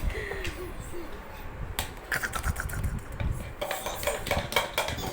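A spoon clinking and tapping against a yogurt container in a run of small, quick clicks while a baby eats, after a brief high babble near the start.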